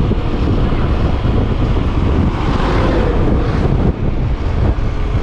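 Heavy wind buffeting the microphone while riding along a road, over a steady low rumble from the moving vehicle.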